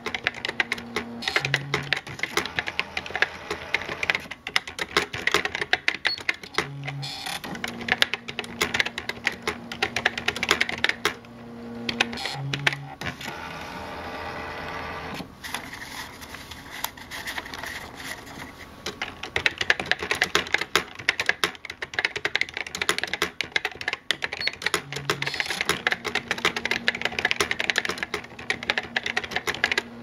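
Brother EP-43 thermal electric typewriter being typed on: a rapid run of key and print-head clicks over a steady low motor hum, with a pause near the middle. A short low hum comes every five seconds or so as each line ends.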